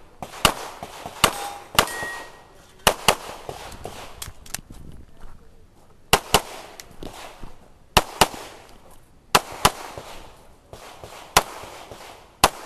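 Springfield XD(M) pistol, a Spencer Race Guns build with a red-dot optic, firing quick pairs of shots, about fifteen in all. The pairs are separated by pauses of a second or two while the shooter moves between targets.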